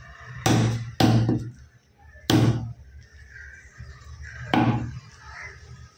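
Heavy curved fish-cutting knife chopping through fish into a thick wooden chopping block: four heavy thuds, two half a second apart near the start, one a little after two seconds and one at about four and a half seconds.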